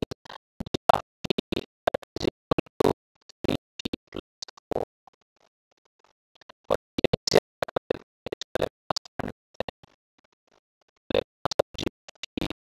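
Digital pen scratching and tapping on a writing tablet during handwriting: quick irregular strokes in three runs, with two short pauses.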